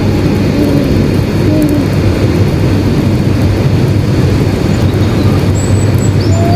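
Steady, loud low rumbling roar of outdoor ambience, with a few faint, short, high bird chirps near the end.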